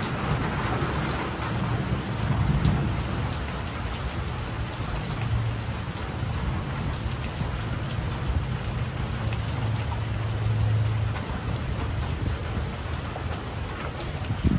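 Wet-season thunderstorm: steady rain falling and pattering, with a low rumble running underneath.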